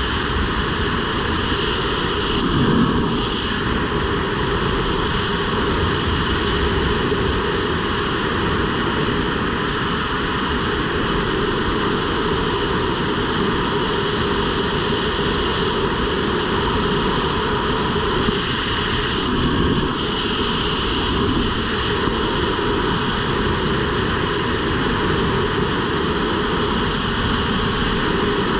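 Steady wind noise rushing over the camera's microphone as the skydiver flies through the air on the jump, loud and even throughout, with slight swells in the gusting.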